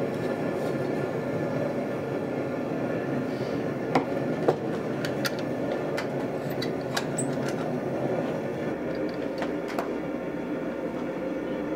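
Steady rumbling shop noise with a few sharp metal clinks and clanks, the two loudest about four seconds in, as tongs draw the red-hot steel out of an electric heat-treating kiln and the kiln door is shut.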